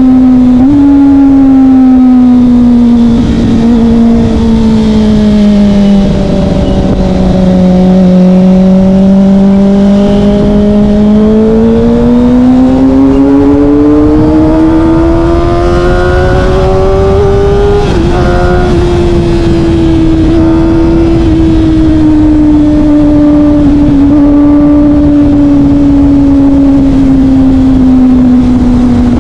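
Kawasaki Ninja ZX-25R's 250 cc inline-four engine through a Yoshimura R11 exhaust, under way at steady mid-range revs. The pitch sags, then climbs for several seconds as the engine pulls harder. It drops sharply about two-thirds through, like an upshift, and settles lower again.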